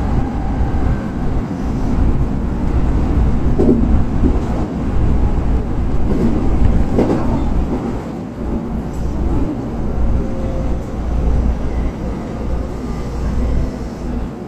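Electric train heard from the driver's cab, running and braking into a station: a steady low rumble of wheels on rail with a few knocks over rail joints, easing off in the second half as the train slows.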